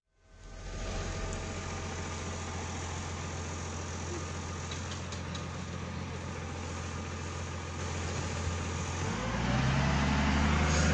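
Motor grader's diesel engine running steadily at low revs, then revving up about nine seconds in.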